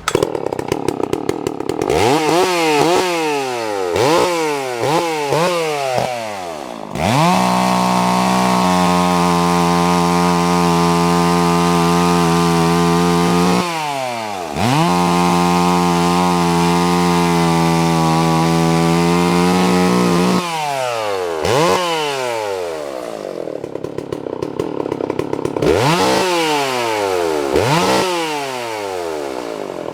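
Sachs Dolmar 120 SI two-stroke chainsaw running and being revved: a string of quick throttle blips rising and falling in pitch, then held at full throttle for about six seconds, dropping briefly and held high again for another six, then more blips settling to a lower run near the end.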